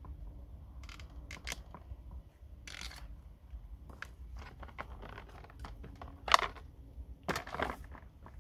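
Handling noise from a Bosch PBH 2100 RE rotary hammer drill being lifted and set back into its moulded plastic carry case: scattered plastic clicks and knocks with brief rustling scrapes, the loudest a sharp knock about six seconds in.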